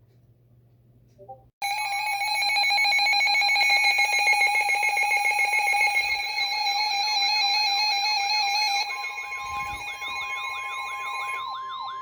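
Emergency Alert System attention tones for a new warning: a loud, steady multi-tone alarm starts about a second and a half in. About halfway through, a siren-like tone joins, rising and falling two or three times a second. Near the end, a steady single tone comes in as the first alarm stops.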